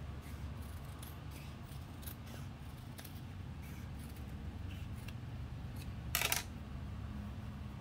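Scissors being handled, with faint rustles and clicks as leather is moved, then one short sharp snip about six seconds in as scissors cut at the sewing machine's needle, the loudest sound here.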